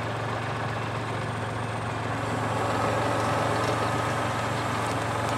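Compact tractor engine idling steadily with a low hum; a steady higher whine joins in about halfway through.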